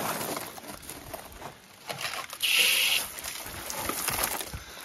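A short, loud hiss of water spraying from a hose, lasting about half a second midway, with faint rustling and clicks around it.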